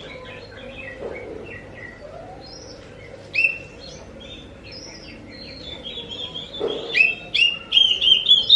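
Oriental magpie-robin (kacer) singing a fast, varied song of short whistled notes. It grows louder in the last two seconds, with a run of rising notes near the end.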